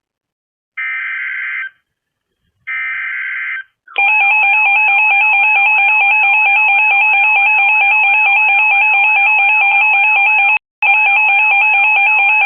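Emergency Alert System signal: the last two of the three screechy digital SAME header bursts, about a second each, then about four seconds in, the loud, steady EAS attention alarm tone with a warbling edge. It breaks off for an instant near the end. These tones mark the start of a new emergency alert.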